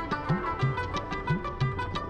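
Music with plucked string instruments over a steady beat, about three beats a second.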